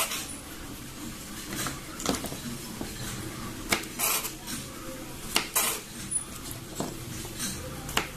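Small kitchen knife cutting garlic cloves on a cutting board: sharp, uneven knocks of the blade striking the board, roughly one every second or so.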